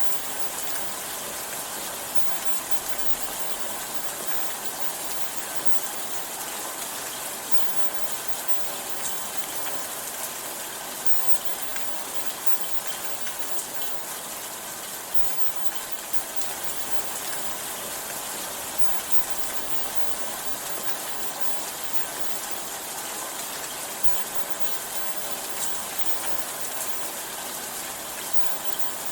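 Steady rain: an even hiss of falling rain with no change in strength, with a few faint drop ticks.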